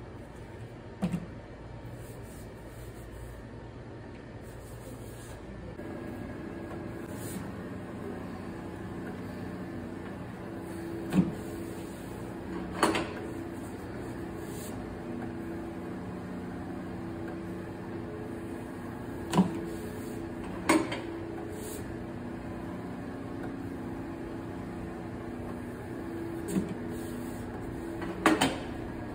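Udon dough being pressed and slapped down by hand on a noodle machine's stainless, floured work table: about seven sharp, scattered thuds, some in quick pairs. Under them runs a steady electric machine hum that comes in about six seconds in.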